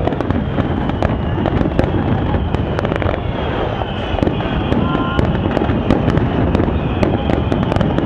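Aerial fireworks in a dense, continuous barrage: a steady rumble of overlapping bursts, shot through with many sharp cracks and crackles.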